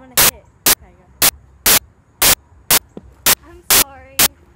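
Loud clicks of static repeating evenly about twice a second, a recording glitch, with faint voices between them.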